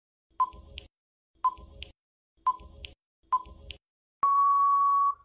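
Quiz countdown timer sound effect: four short beeps about a second apart, then one long steady beep of about a second as the countdown runs out.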